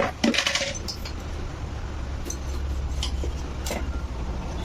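A metal spoon clinking against a dish, a quick cluster of clinks in the first half second and a few lighter taps afterwards, as salt is spooned into the chicken marinade. A steady low hum runs underneath.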